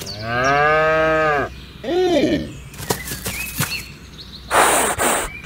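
A cow mooing: one long moo lasting about a second and a half, then a shorter call about two seconds in. Near the end comes a brief, loud rushing noise.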